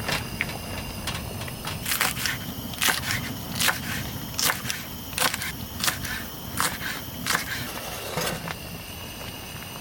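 Footsteps crunching in snow, about nine even steps at a walking pace.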